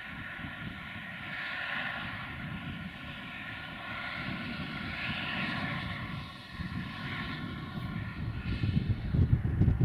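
Distant engine drone, a steady whine of several high tones over a low rumble, with wind buffeting the microphone near the end.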